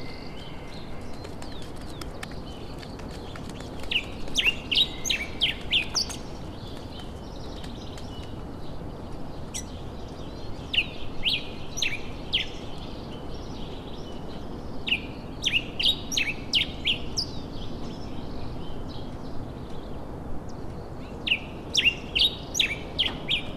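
A songbird singing phrases of rapid, high chirps that recur every five or six seconds, over a steady background hiss.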